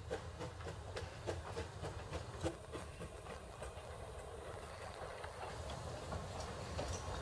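Baldwin steam locomotive and its passenger train running slowly past, a low rumble with a rhythmic clicking of about three a second that fades after the first few seconds.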